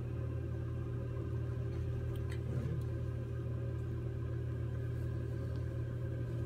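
Steady low machine hum, with a few faint clicks a little over two seconds in.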